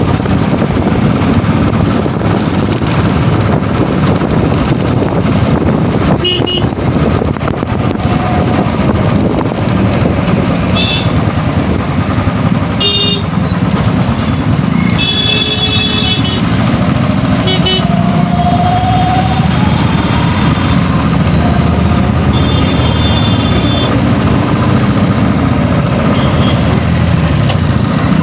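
Motorcycle riding along in traffic: steady engine and road-wind noise, with short vehicle horn toots several times, the longest a second or so after the middle and again near the end.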